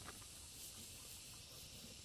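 Near silence: a faint steady hiss with a couple of faint ticks.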